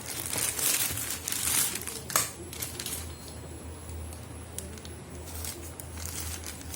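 Packaging crinkling and rustling as a parcel is opened by hand, with a sharp snap about two seconds in, then quieter scattered rustles and clicks.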